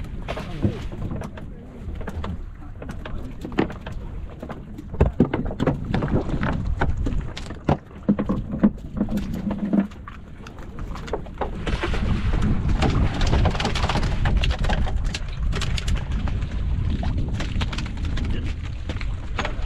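Knocks and clatter as a handline and a hooked barracuda are hauled over the side of a wooden fishing boat, over a steady low rumble of wind and sea. The knocks are most frequent in the first half, and a denser rushing noise takes over about twelve seconds in.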